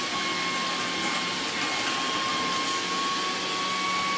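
Small 12 V vacuum blower motor of a floor-cleaning robot running steadily, with a constant high whine over a rushing air noise.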